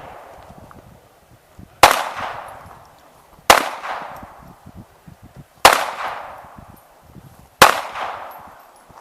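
Four pistol shots fired one at a time, roughly two seconds apart, each sharp crack followed by a fading echo.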